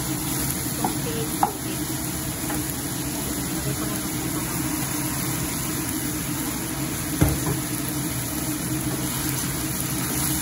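Chicken pieces sizzling in a stainless steel frying pan while being stirred with a wooden spatula. Two sharp knocks stand out, about a second and a half in and again about seven seconds in.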